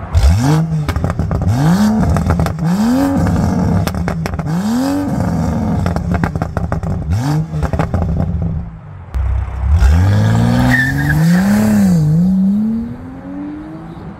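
BMW N55 turbocharged straight-six revving through a valved, muffler-deleted exhaust with the valves open: a series of quick throttle blips, then a longer climb in revs about ten seconds in. Crackling pops as the revs drop after the blips, the soft pops of its MHD stage 2 tune.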